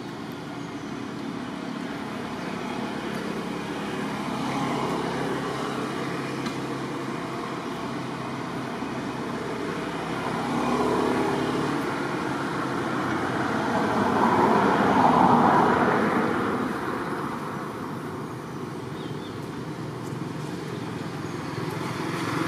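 Road traffic: a steady wash of vehicle noise that swells twice, loudest about fifteen seconds in as a vehicle passes, then fades again.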